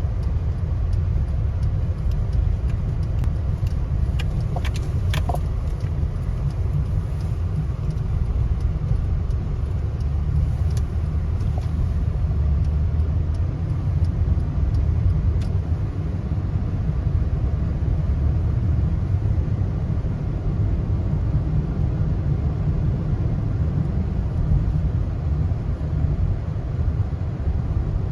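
Steady low rumble of a car on the move, with a few faint clicks about four to five seconds in.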